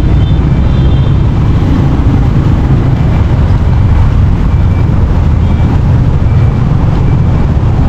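Steady low rumble of road traffic, loud and even, with no single event standing out.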